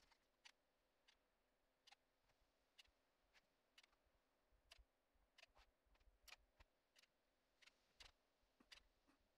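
Near silence with faint, irregular clicks from a manual caulking gun being squeezed as it lays a bead of silicone caulk.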